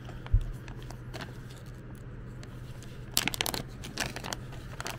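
Thin plastic zip bags holding coiled cables crinkle and rustle as they are handled and one is pulled open, with a crackly burst about three seconds in. A dull thump comes just after the start, over a steady low hum.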